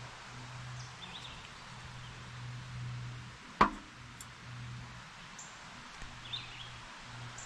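Outdoor woodland ambience: two faint short bird chirps and, about halfway through, a single sharp knock, over a low steady hum.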